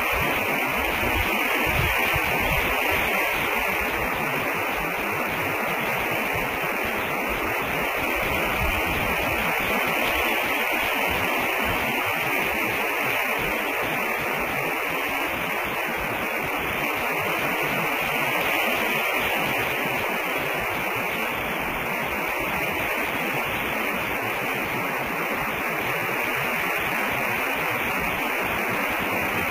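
Steady electronic static hiss, strongest in a high band, with no distinct events.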